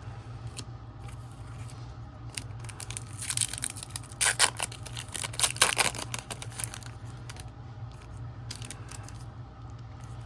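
A trading-card pack's foil wrapper being torn open and crinkled, a run of crackling tears and rustles through the middle few seconds, over a low steady hum.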